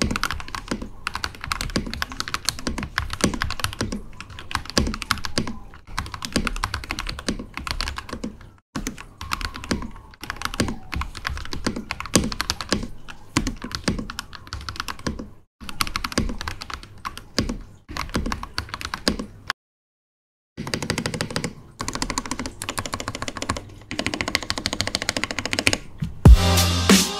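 Typing on a custom 60% mechanical keyboard built on a GK61xs PCB with Akko Matcha Green switches, JWK Panda stabilizers and WOB keycaps: a fast, irregular patter of keystrokes with brief pauses, going fully silent for about a second some two-thirds through. In the last second a louder, low sound cuts in.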